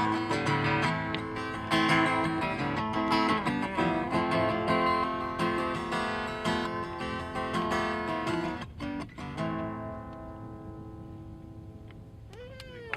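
A guitar strummed through the closing bars of a song, ending on a final chord about nine and a half seconds in that rings on and fades away.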